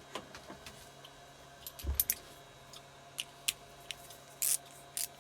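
Metal hand tools clinking as a socket extension bar and socket are picked up and fitted together: a dull knock about two seconds in, then scattered sharp metallic clicks and a short scrape.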